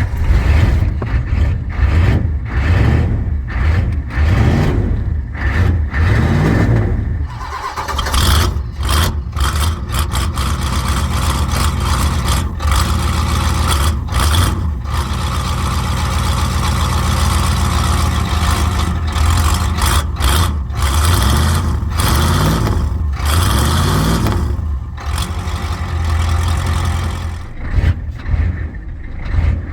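Ford 6.9-litre IDI V8 diesel running just after start-up, on a fuel filter filled with ATF and diesel additive. Its note rises and falls several times, with short dips.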